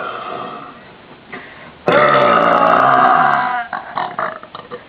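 A long, loud, deliberate burp, starting about two seconds in and lasting nearly two seconds, after a fainter, shorter burp sound at the start.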